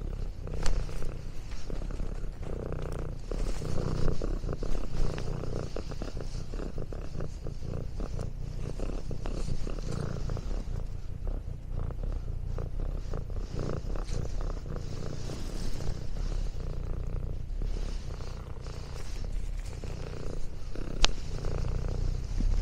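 Domestic cat purring steadily, with a few sharp clicks about a second in and near the end.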